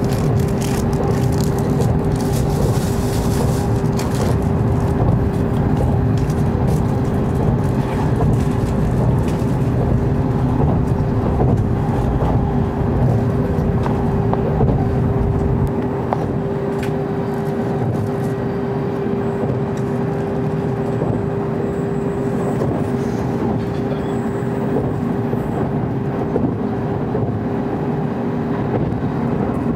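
Running noise of an N700 series Shinkansen, heard inside the passenger cabin: a steady rumble of the train at speed with a constant hum over it. The rumble eases slightly about halfway through.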